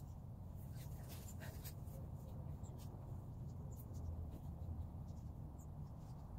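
Faint scratching and light clicks as plastic pots and garden supplies are handled on a plastic table, over a steady low hum.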